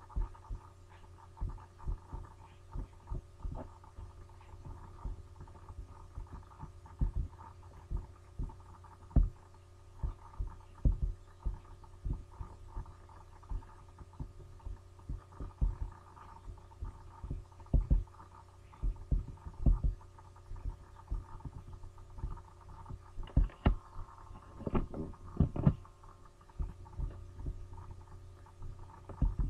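Steady electrical hum with irregular low clicks and thumps, a few a second at times and bunched most closely near the end, typical of mouse clicks and desk handling picked up by a computer's microphone.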